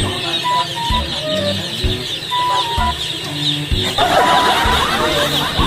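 Many chicks peeping continuously, a dense high chirping, under background music with a steady beat.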